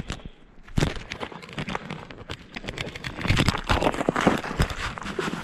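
Footsteps crunching through deep snow, with crackling rustle close to the microphone. The crunching grows louder about three seconds in.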